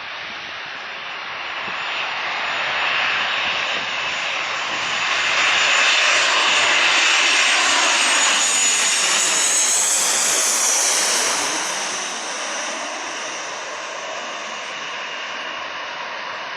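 Jet airliner passing close by. Its engine noise builds to a peak in the middle, and a whine drops in pitch as it goes past, about ten seconds in. The noise then eases off.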